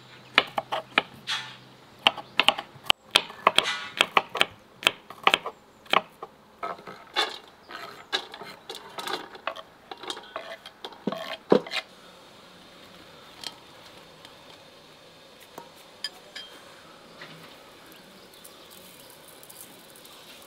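Kitchen knife chopping garlic cloves on a wooden cutting board: quick, uneven knocks of the blade on the board for about the first twelve seconds. After that, only a few scattered taps as the chopped garlic is scraped off the boards into an enamel basin.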